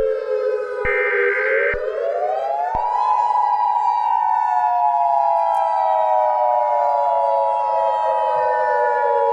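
Outdoor civil-defense warning siren wailing. Its pitch dips, then rises over about two seconds to a high tone. After that one tone holds steady while a second slowly falls. Two short, higher-pitched pulses sound in the first two seconds.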